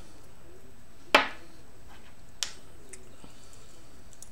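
Small hard parts clicking as a dripping atomizer is handled: one sharp clink with a brief ring about a second in, then a lighter click over a second later and a few faint ticks.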